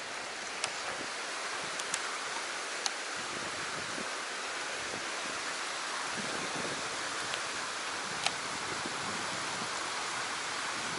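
River rapids rushing through a narrow rock channel: a steady rush of white water, with a few faint clicks over it.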